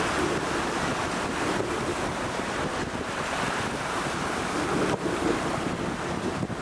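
Wind buffeting the microphone over the rush and splash of water alongside a moving boat, a steady noisy wash.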